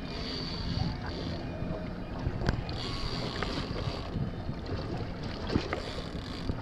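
Wind on the microphone and water lapping against a small boat's hull, with a few sharp knocks about two and a half and five and a half seconds in.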